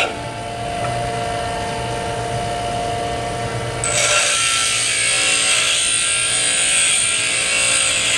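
DeWalt bench grinder running with a steady hum. About four seconds in, a lathe tool bit is pressed against the grinding wheel, and a steady high-pitched grinding hiss starts and carries on as the side of the grooving tool is ground.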